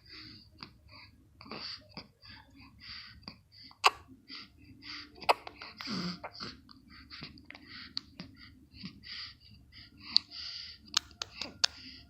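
A child laughing in short breathy bursts, two or three a second, while hiccuping. Sharp hiccups break in about four and five seconds in and three times in quick succession near the end.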